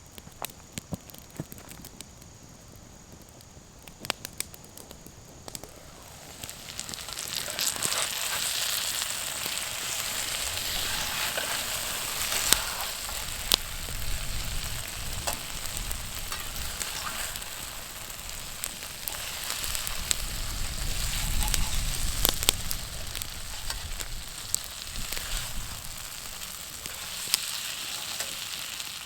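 Potatoes frying in oil in a cast iron skillet over a campfire, sizzling with scattered sharp pops. The sizzle is faint at first and becomes much louder about six seconds in.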